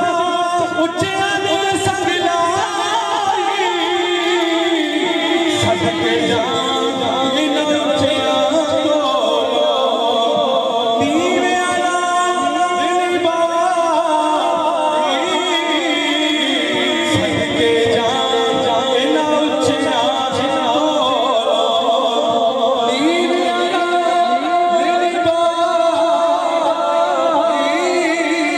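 A man singing a devotional naat in Punjabi into a microphone, his voice amplified through a PA loudspeaker. It is a continuous melodic recitation with long held, wavering notes.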